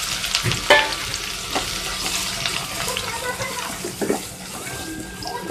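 Sliced onions sizzling in mustard oil heated to smoking point in a steel pot. A metal spatula stirs them, knocking and scraping against the pot a few times. The sizzle gradually eases.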